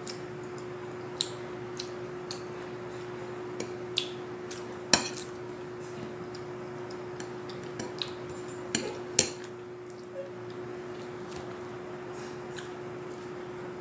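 A metal fork clinking and scraping against a ceramic plate while eating, in scattered irregular taps, the loudest about five and nine seconds in. A steady hum runs underneath.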